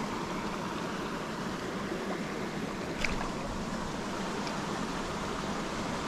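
Steady rush of flowing creek water, with a brief faint high sound about three seconds in.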